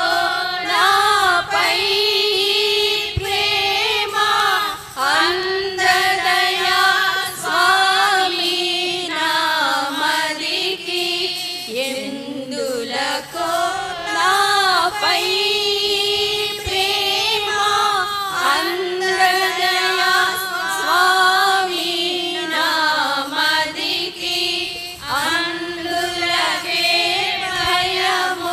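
A group of women singing a hymn together, in sustained melodic phrases.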